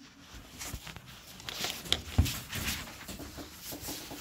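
Handling noise of a phone and its cabled microphone being picked up and moved: irregular rubbing and rustling with small knocks, and one louder knock about two seconds in.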